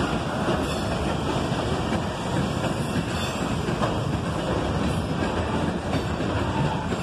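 Freight train boxcars rolling past close by: steady noise of steel wheels running on the rails.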